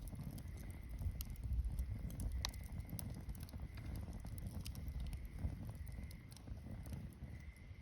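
Wood campfire burning: a low rumble of flame with scattered crackles and pops, the sharpest about two and a half seconds in.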